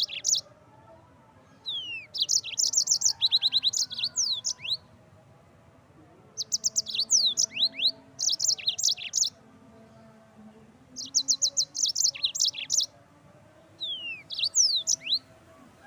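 Yellow-fronted canary singing in four phrases, each one to three seconds long. Each phrase is made of fast, high trills and quick down-slurred whistles, with short pauses between the phrases.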